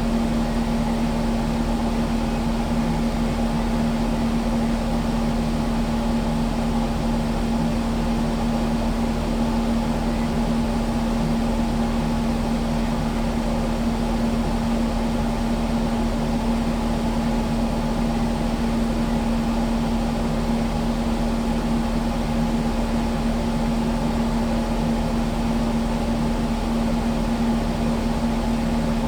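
Kubota skid steer's diesel engine running at a steady speed, an even drone with a strong, unchanging hum.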